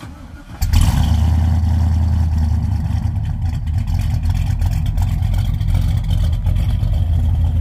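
A classic 1960s Pontiac's engine starting: a brief start, catching about half a second in, then running at a loud, steady idle.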